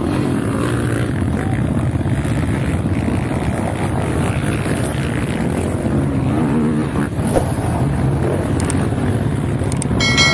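Several racing quad (ATV) engines running and revving together, a dense, loud engine din. Near the end a short chiming sound effect comes in.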